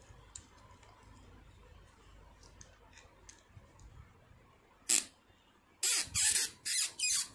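Spin mop's jammed shaft being twisted in its hub with pliers after oiling. There are faint ticks at first, one sharp squeak about five seconds in, then rapid repeated squeaks, about three a second, as the tight joint is worked back and forth. This is the stiff, seized joint starting to free up.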